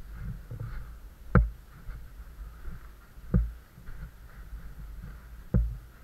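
Three dull thumps about two seconds apart, over a low steady rumble and faint hiss: the knocks and handling noise of someone moving through a cave with the camera.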